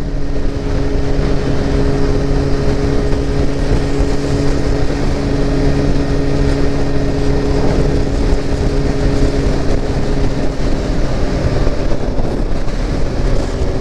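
Motorcycle engine running at a steady cruise, with the rumble of wind and road noise on the rider's microphone.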